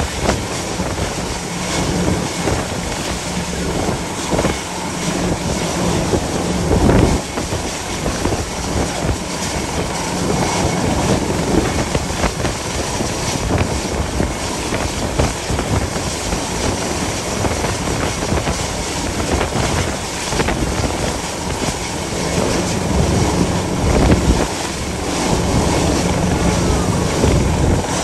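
Gale-force wind buffeting the microphone in gusts, over a steady low drone from the rescue helicopter's rotor and engine.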